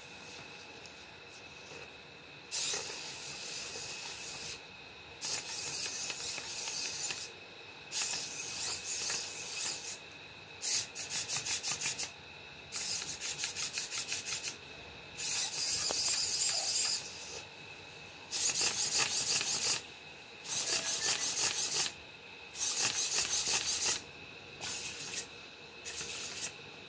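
Small hobby micro servo motors on a four-legged Arduino walking robot whirring and grinding in short bursts as they swing the legs, about eleven bursts of one to two seconds with brief pauses between, some chattering in quick steps. A faint steady high whine runs underneath.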